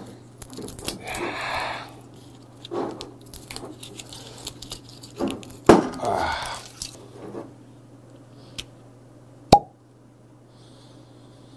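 Cork stopper of a Balvenie 14-year single malt whisky bottle worked loose and pulled free with a sharp pop about halfway through. A second, fainter sharp click comes near the end.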